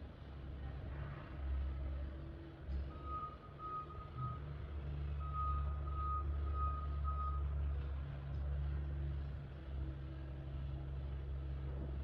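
A steady low rumble with two runs of rapid, evenly spaced high-pitched beeps a few seconds in, about three beeps a second.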